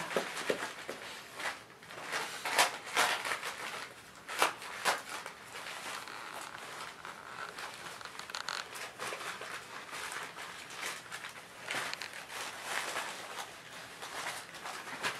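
Wrapping paper crinkling and tearing as a Jack Russell terrier puppy rips it off a rope toy, with a few sharp rips standing out among the rustling.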